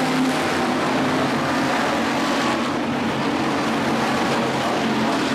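A pack of dirt-track stock cars racing around the oval, their engines running hard in a steady, loud drone.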